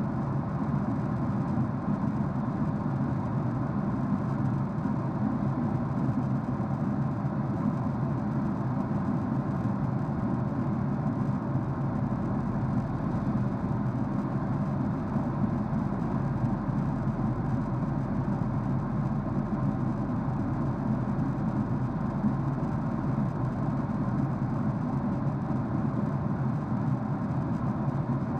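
Steady low drone inside a jet airliner's cabin at cruise: engine and airflow noise, even throughout with no changes.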